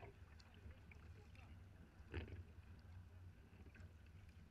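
Faint sea-kayak paddle strokes splashing through choppy water, two distinct dips about two seconds apart, over a low steady rumble of water.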